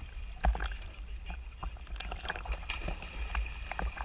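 Underwater sound through a camera housing: many scattered, irregular clicks and crackles over a low steady rumble.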